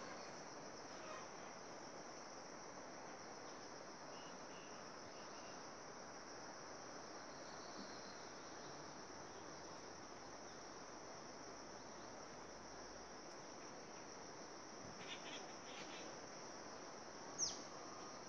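Faint, steady high-pitched chorus of insects. A few short bird chirps come in late, and near the end one sharp, quick falling call stands out as the loudest sound.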